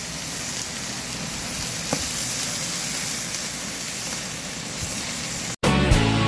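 Skirt steak sizzling over open flames on a grill grate as it is seared over direct heat, a steady hiss with a small pop about two seconds in. About five and a half seconds in it cuts off abruptly and intro music starts.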